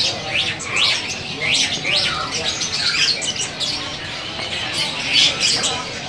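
Many caged songbirds calling at once: a dense, overlapping chorus of short chirps and quick downward-sweeping whistles.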